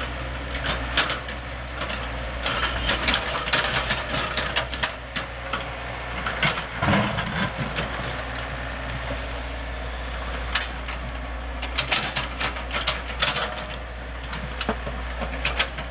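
Tracked excavator's diesel engine running steadily, under a rapid, uneven clatter of clanks from its steel tracks on loose rock, with a heavier crunch about seven seconds in.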